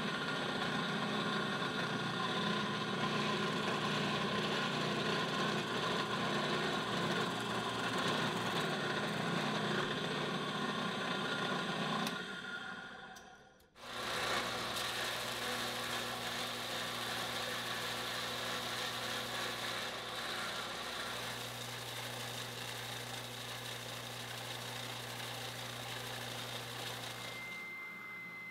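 Electric workshop power tools running steadily. The first machine fades out a little past halfway, then another runs with a steady low hum until shortly before the end.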